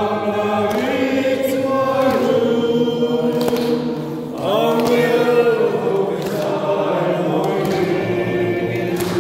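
A group of people singing together in long, held notes, with a short break and a new phrase starting about four seconds in.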